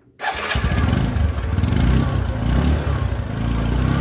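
Motorcycle engine running in second gear and sped up, starting about a third of a second in after a brief quiet. No squeal is heard from the freshly cleaned drum brake.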